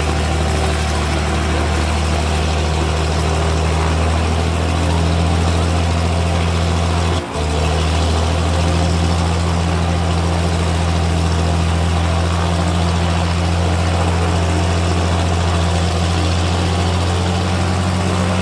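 De Havilland Devon's six-cylinder Gipsy Queen piston engine running steadily at low power with a deep, even drone. Only one of the twin engines is turning; the other is still stopped. The sound dips briefly about seven seconds in.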